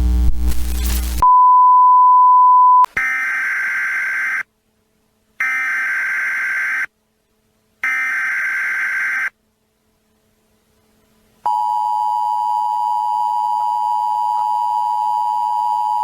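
Emergency Alert System tones: a burst of harsh static and a single steady beep, then three short buzzy data bursts (the digital SAME header). After a short pause, the steady two-tone EAS attention signal begins about eleven seconds in and holds.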